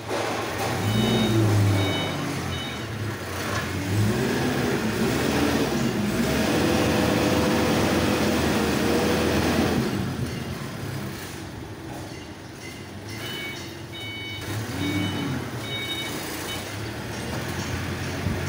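Forklift engine revving up and down as it manoeuvres, held high for several seconds in the middle, with its reversing alarm sounding short repeated beeps near the start and again in the second half.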